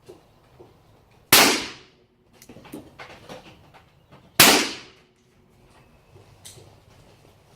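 Two shots from a Smith & Wesson Model 2 .32 calibre revolver loaded with black powder, about three seconds apart, each with a short echoing tail. Lighter clicks come between the shots.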